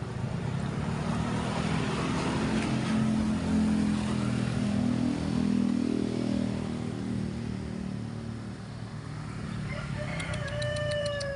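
A motor vehicle's engine running nearby, swelling louder in the middle and easing off. Near the end a cat gives a drawn-out meow.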